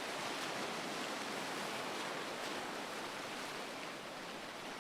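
Steady rush of ocean surf washing onto the beach, easing slightly in the second half.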